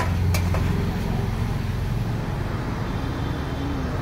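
Electric shawarma slicer cutting chicken off a vertical spit: a steady low motor hum, with two sharp metallic clicks near the start as the blade meets the meat and tray.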